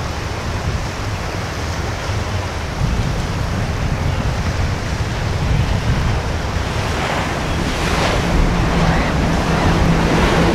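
Wind buffeting the microphone over the wash of waves and water, with a catamaran center-console boat's outboard engines droning underneath; the engine note grows louder near the end as the boat passes close.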